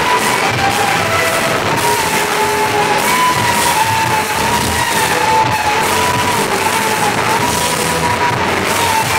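Live rock band playing, electric guitar over a full band, with a long wavering melody line carried through. The live recording is loud and of poor quality.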